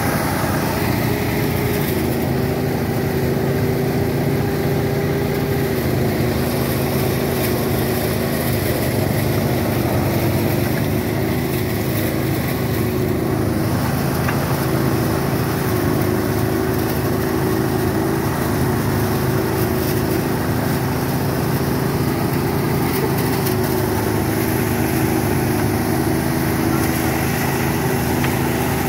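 Small engine running a rice thresher at a steady speed, a constant mechanical drone.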